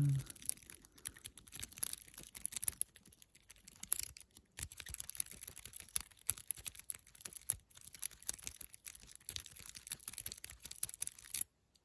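A McTickler lock pick being rocked and raked in an Abus 41 padlock's keyway under Z-bar tension. It makes a dense, irregular run of tiny metallic clicks and scrapes as it works the pins toward a full set. The clicking stops briefly just before the end.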